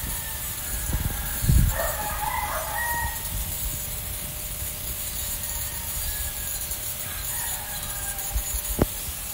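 A rooster crowing once, about two seconds in, with a fainter call later, over a steady low hiss and a few soft knocks.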